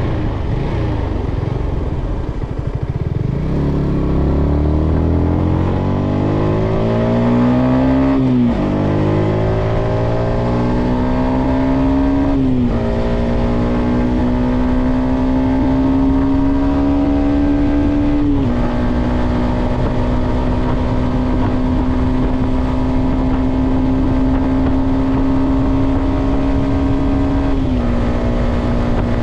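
Yamaha XSR125's single-cylinder four-stroke engine pulling through the gears. The engine note falls at first, then climbs, dropping sharply at each of three upshifts. It then holds steady at cruising speed, with one small drop near the end. Steady wind rush runs underneath.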